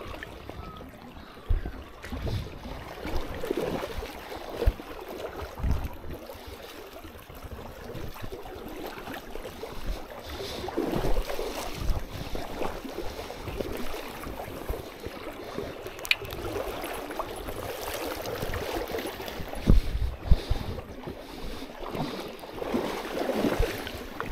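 River water sloshing and splashing, with gusts of wind buffeting the microphone in low thumps, the strongest about twenty seconds in.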